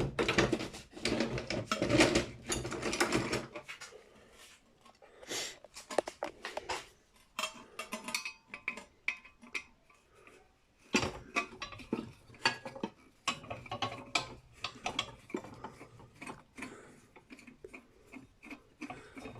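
A Phillips screwdriver working screws loose on a brass light fitting: repeated metallic clicking and scraping, busiest near the start and again past the middle.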